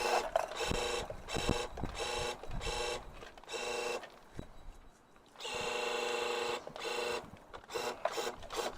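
Small electric motor of a homemade remote-control toy fire truck whirring at a steady pitch, switched on and off in short spurts with a brief pause about halfway through.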